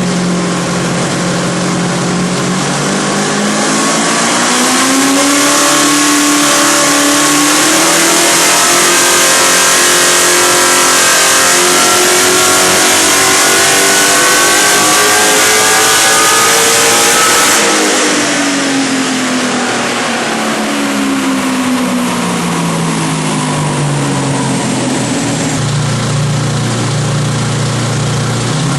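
Supercharged 253 ci Holden V8 on E85 in a long full-throttle pull: the revs climb steadily for about thirteen seconds with a strong hiss over the engine note. The throttle then closes abruptly, the revs fall away, and the engine settles to an idle near the end.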